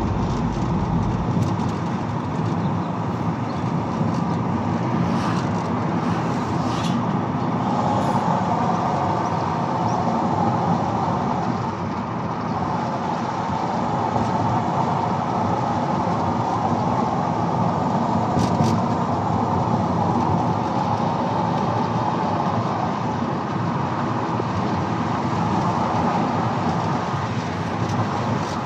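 Steady rumble of a moving road vehicle: engine and tyre noise running without a break.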